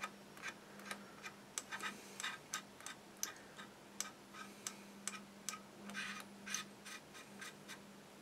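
Faint, short scratchy strokes of a cotton bud scrubbing excess wash off a plastic model kit hull, about two or three irregular ticks a second, over a low steady hum.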